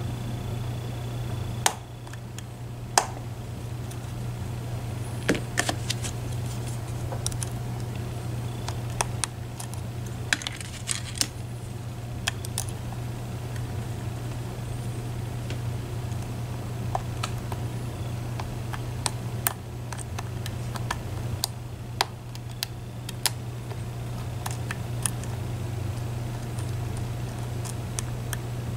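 Scattered, irregular sharp metallic clicks and ticks of a lock pick and tension wrench working the pins of a Medeco Biaxial lock cylinder, over a steady low hum. The picker is setting the pins at the shear line under tension and rotating them to meet the sidebar.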